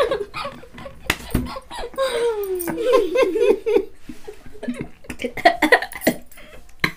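A man and a woman laughing together in bursts, with a couple of sharp knocks about a second in.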